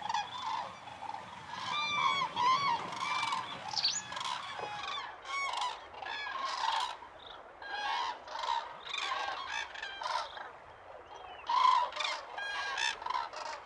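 A flock of cranes calling, many short overlapping honking calls from several birds at once.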